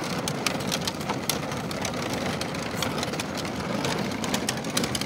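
Battery-powered ride-on toy tractor rolling along a paved path: a steady drone from its motor and plastic wheels on the pavement, with many sharp clicks and rattles.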